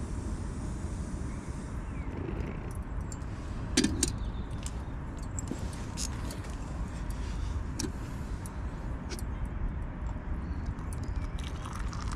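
Light metallic clinks and a knock about four seconds in from a camping kettle being handled and set down on a gas stove, over a steady low rumble.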